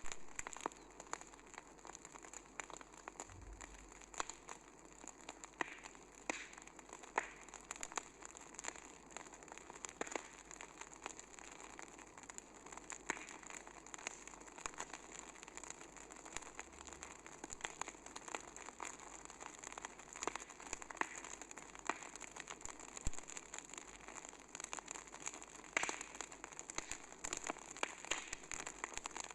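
A steady hiss with many light, irregular crackles and ticks running through it.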